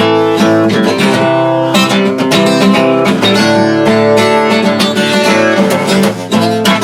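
Acoustic guitar strumming chords steadily in an instrumental break between sung lines of a folk song.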